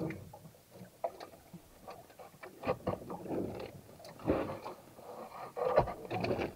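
Scattered knocks, taps and scrapes of handling aboard a small fishing boat.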